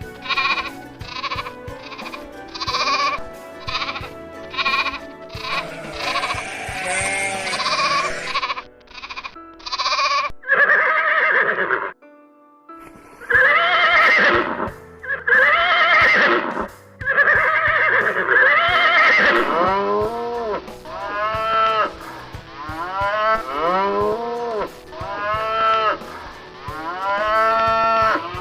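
Farm animals bleating in a long run of separate calls, each rising and falling in pitch, over background music.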